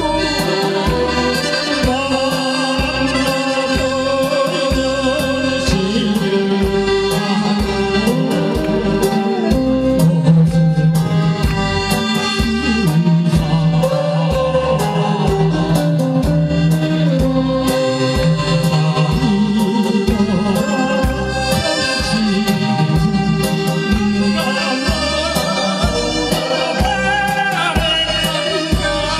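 Korean trot song performed live: singing over band accompaniment with a steady, regular beat.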